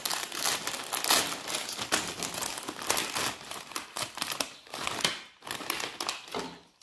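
Thin plastic packaging crinkling and rustling in the hands in irregular crackles, as a packet of button mushrooms is opened and the plastic punnet of mushrooms is pulled out of it.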